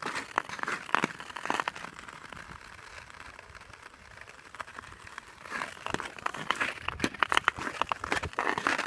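Ice skate blades scraping and crunching on frozen lake ice with each stride, easing to a quieter glide in the middle, then a quicker run of strokes in the last few seconds.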